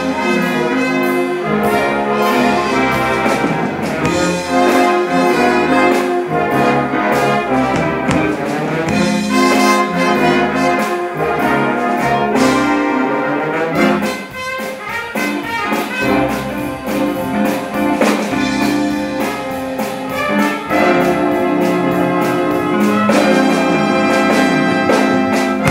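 Brass swing band of trumpets, trombones, tubas and euphoniums with double bass playing loud swing chords punctuated by sharp hits. The band drops back briefly about fourteen seconds in, then comes back in at full volume.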